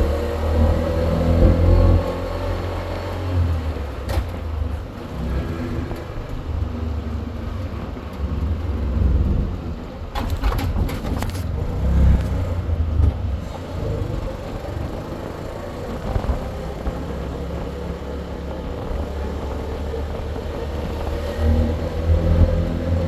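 Motor vehicle on the move: a steady low engine and road rumble that swells and eases, with a few brief clicks about ten seconds in.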